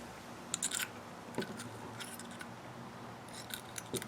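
A few light, scattered clicks and taps of a small metal screw and a bottle of gun bluing being handled, ready to dip the screw head.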